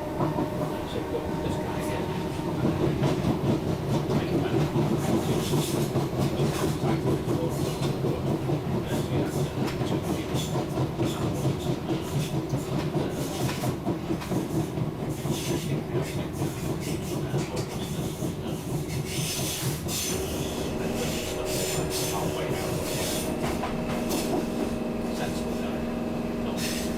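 Class 319 electric multiple unit heard from inside the carriage while running on the track: a steady rumble with frequent clicks and rattles from the wheels on the rails. Steady humming tones join in for the last several seconds.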